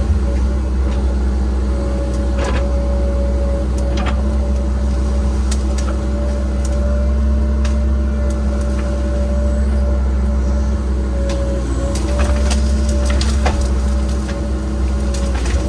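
Cat 306 excavator's diesel engine running steadily under work, with a steady hydraulic-type whine, while sharp cracks of wood and brush breaking come now and then, most thickly near the end.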